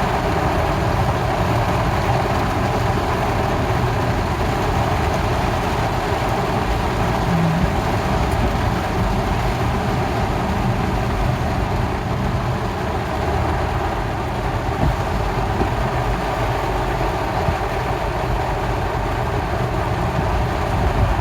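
Car driving through a heavy tropical downpour: a steady mix of rain noise and low engine and road rumble.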